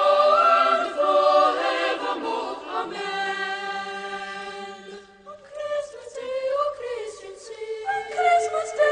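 A choir singing in harmony on long, held notes, thinning to a quieter passage about halfway through before the voices build again.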